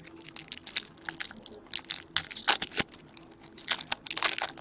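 Hockey trading cards being handled: a string of crisp clicks, snaps and rustles in three bunches as cards are slid and flipped through by hand.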